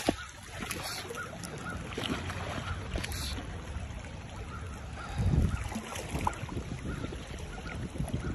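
River current flowing past close to the microphone, with wind noise on the mic and a few handling knocks. The loudest moment is a low rumbling gust or bump about five seconds in.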